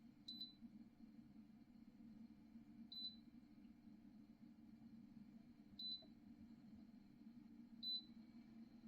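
Four short, high electronic beeps, irregularly spaced two to three seconds apart, over a faint steady low hum.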